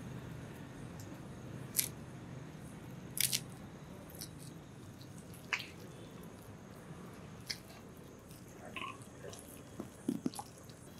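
A hand squishing and kneading marinated chicken with chopped coriander in a stainless steel bowl: wet squelches with a few sharp, irregular clicks, over a low steady hum.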